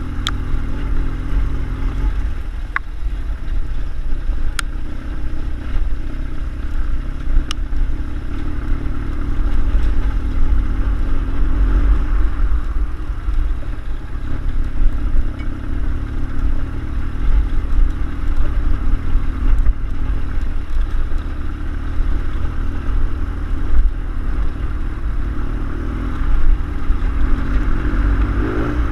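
Air-cooled BMW airhead boxer-twin motorcycle engine running steadily while riding an unpaved mountain track, with a strong low rumble throughout. A few sharp clicks come in the first several seconds.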